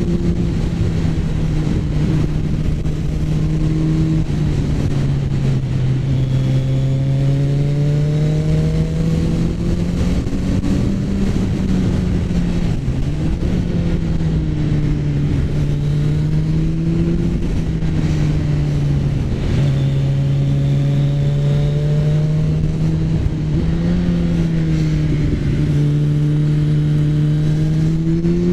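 Kawasaki Z900's inline-four engine running under way on the move, holding a fairly steady pitch with brief dips and rises a few times as the riding changes.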